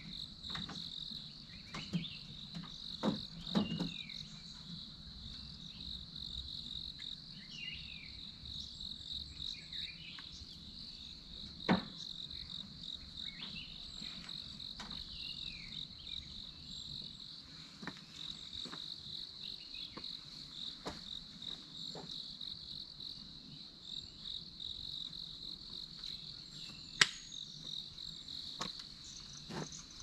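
Steady chorus of insects, a pulsing high buzz, with scattered short falling chirps and a few sharp knocks, the loudest about twelve seconds in and another near the end.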